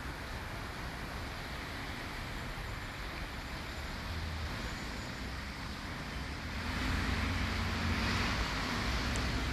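Street traffic: cars driving along a snow-covered road, a steady hiss and rumble that grows louder about seven seconds in.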